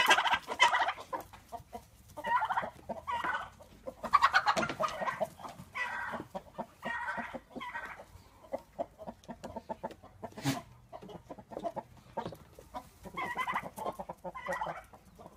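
Chickens clucking in a run of short, repeated calls, with a single sharp click about ten and a half seconds in.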